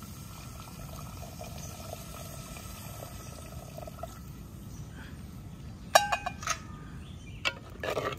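A thin stream of coconut milk pouring from a steel vessel into a clay cooking pot for about four seconds. About six seconds in come a few ringing metal clinks, and near the end a steel ladle clatters in the clay pot.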